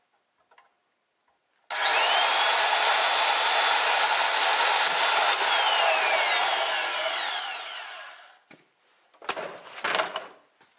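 Porter-Cable portable band saw cutting through a metal snowmobile handlebar tube held in a vise: the motor starts suddenly about two seconds in with a rising whine, runs loud and steady for about five seconds, then winds down and fades. A few sharp knocks follow near the end.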